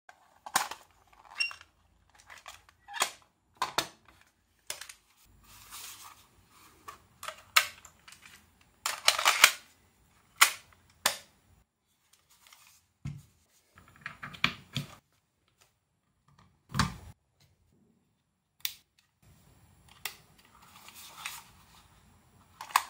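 A series of irregular sharp clicks and knocks, some followed by short scraping rustles, with a couple of deeper thuds partway through.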